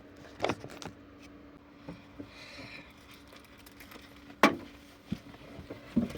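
A few scattered clicks and knocks of objects being handled, the sharpest about four and a half seconds in, over a faint steady hum.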